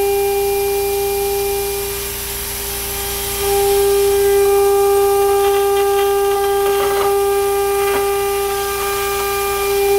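CNC router spindle running at about 24,000 rpm, a steady high whine, as a single-flute end mill contour-cuts an aluminium plate, with an air blast hissing on the cutter. The whine drops a little about two seconds in and comes back about three and a half seconds in, and there are a couple of light ticks near the end.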